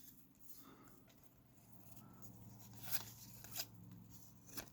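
Basketball trading cards being handled and flipped through, with a few soft clicks and rustles over a low steady hum.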